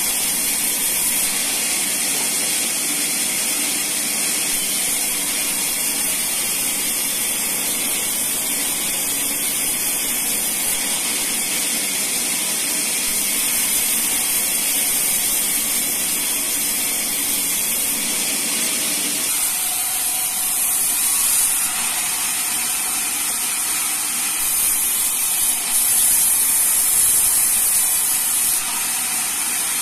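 Vertical band sawmill running and ripping teak timber: a steady, loud hiss of the blade in the wood. The lower part of the sound thins out about two-thirds of the way through.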